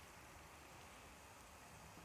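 Near silence: a faint, steady hiss of hot oil frying flattened black chana in a mesh strainer.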